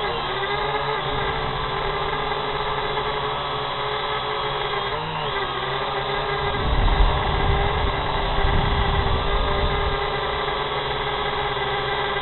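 Drone's propellers and motors whining steadily, heard from the drone's own microphone, the pitch wavering as it hovers and manoeuvres. A burst of low rumble comes in about seven seconds in.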